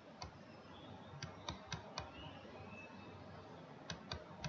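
Faint sharp clicks at a computer: one near the start, a quick run of four about a second in, and two more near the end.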